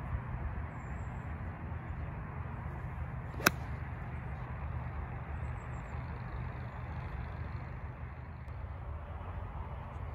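One sharp click of an iron striking a golf ball off the tee about three and a half seconds in, over a steady rumble of wind on the microphone.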